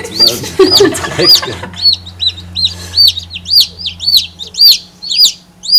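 Chicken chicks peeping: a fast, even run of high, arching peeps, about three a second, over a low steady hum that stops about four and a half seconds in.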